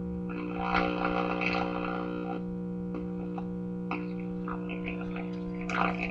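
Old GE T238B tube radio's speaker putting out a steady, loud mains hum with crackly bursts of static over it, about half a second in and again near the end. The hum is the sign of a failing capacitor, which the repairer blames for it.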